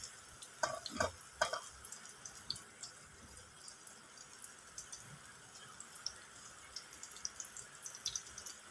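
Bread omelette frying gently in a steel frying pan over a low flame: a faint steady sizzle with small scattered pops. A few soft knocks come in the first second and a half as the bread pieces are pressed down.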